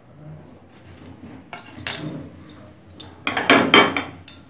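Metal clinks and clattering of a frying pan and kitchen utensils as cooking oil is added to the pan and spread around. There is a single clink about two seconds in, then a louder run of clatters near the end, closing with one sharp click.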